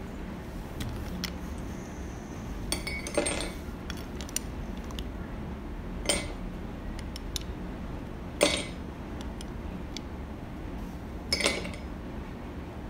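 A handful of short, sharp clinks of small hard objects, spaced a couple of seconds apart, over a low steady hum.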